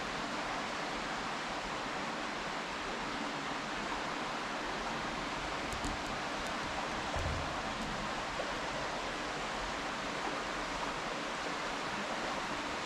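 Steady rushing of flowing river water, with a few faint clicks about halfway through.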